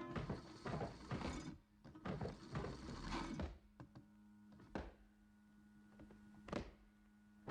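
Cartoon sound effects: a quick run of knocks and clattering, then a low steady hum broken by two sharp clicks.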